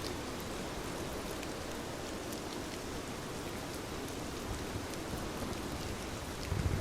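Steady rain falling, with scattered sharp drop ticks. Near the end a low rumble of thunder swells in.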